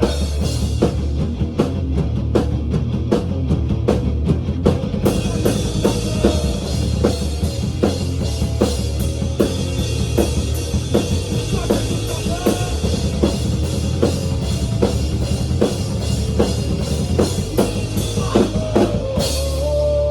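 Rock music with a steady drum-kit beat, bass drum and snare over a low bass line, the cymbals growing brighter about five seconds in.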